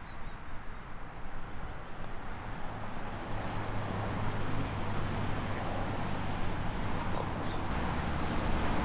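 Golf cart running: a steady low motor hum with rumble that builds from about two and a half seconds in, with a brief rattle near the end.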